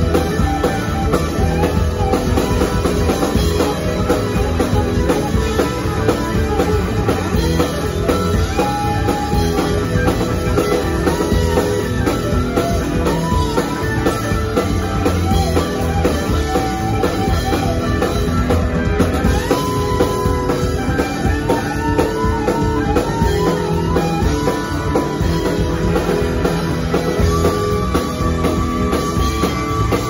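Live rock band playing loud: electric guitars, bass and drum kit, with a lead line of bent, wavering notes over the top.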